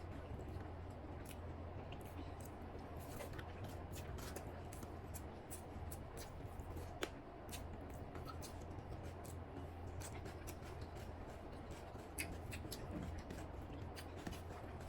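Eating sounds: many small irregular clicks and smacks of chewing and handling chicken biriyani with egg, the sharpest about seven seconds in, over a steady low hum.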